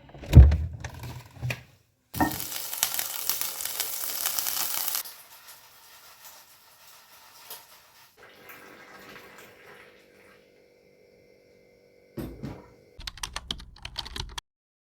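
Kitchen sounds: a thump, then water running from a tap for about three seconds, then a quiet stretch and a run of clattering knocks near the end.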